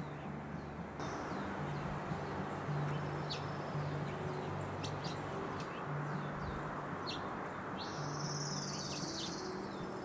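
Small wild songbirds chirping: scattered short, sharp call notes, and a longer buzzy call about eight seconds in.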